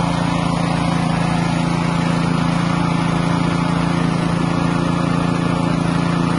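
Floating fish-feed pellet extruder running, its motor giving a steady, unchanging hum.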